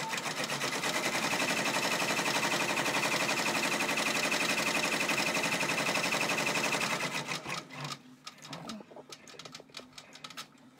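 Brother PR655 multi-needle embroidery machine stitching at speed, a fast, even clatter of the needle going up and down as it sews the placement line that shows where the vinyl goes. The clatter stops about seven seconds in, leaving a few faint clicks.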